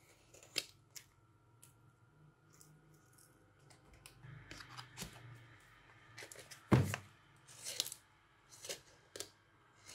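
A parcel being unpacked by hand: packaging torn and cut open in short rustling bursts, with small clicks of handling and one louder knock about seven seconds in.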